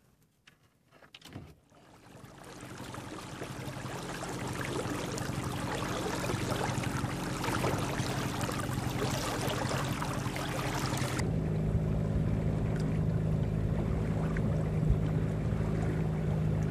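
Small open fishing boat under way: water rushing and splashing along the hull over a steady motor drone, building up over the first few seconds. About eleven seconds in the splashing drops away suddenly and the motor's steady hum remains.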